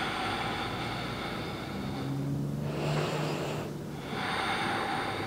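Slow, deep breathing close to the microphone, held in a yoga pose: one long breath, a short pause a little before three seconds in, then another long breath.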